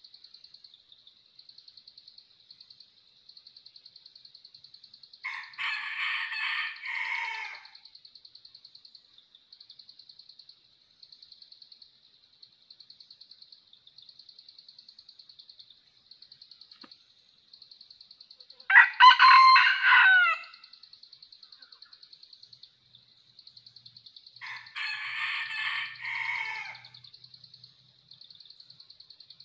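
Red junglefowl (labuyo) crowing: a thin, small-voiced crow about five seconds in and a similar one near the end, with a louder, differently pitched crow between them. A steady, high-pitched pulsing buzz runs underneath.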